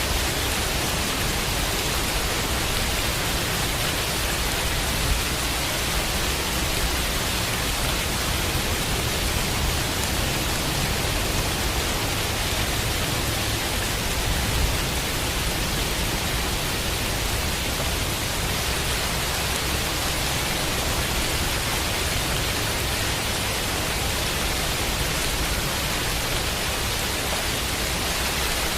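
Steady rain, an even hiss with a constant low rumble under it.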